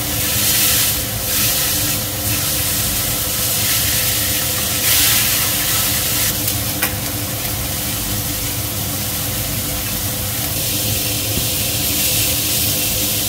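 Beef steaks sizzling steadily as they sear in olive oil in a stainless steel frying pan, over the steady hum of a kitchen range hood fan. Metal tongs click once against the pan about seven seconds in, as the steaks are turned.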